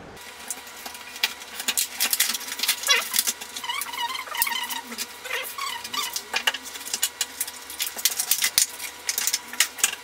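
Stiff clear plastic blister packaging crackling and rustling as it is pulled open, with short squeaks of plastic rubbing on plastic and light clicks of the parts being taken out and handled.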